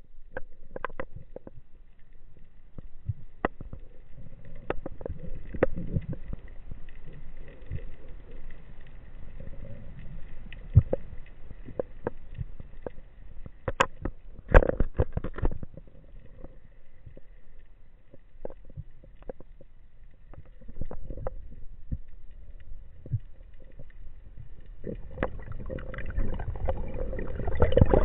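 Muffled underwater rumble and water movement against an action camera's waterproof case as a freediver swims, with scattered clicks and knocks on the housing. A faint steady high tone runs underneath, and the rumble swells near the end.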